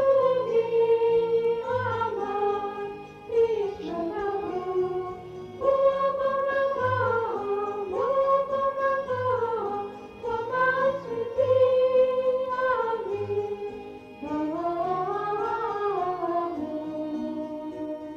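Background music: a slow melody line that glides between long held notes, over a soft low beat.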